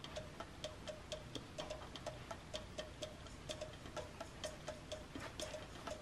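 Faint, steady ticking, about two ticks a second, evenly spaced.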